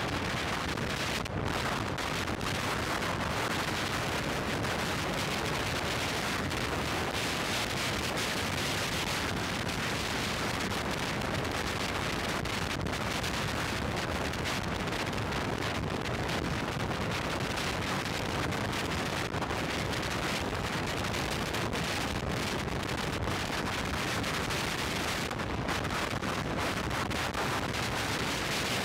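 Steady wind noise on an action camera's microphone while riding a motorcycle at highway speed: an even rush with no clear engine note standing out.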